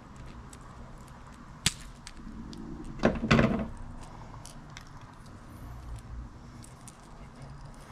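Small hard objects being handled on a work surface: one sharp click, then about a second later a short clatter of several quick knocks, the loudest sound here. This fits a retrieved hard-bodied fishing lure and its treble hooks being handled and set down while it is cleaned.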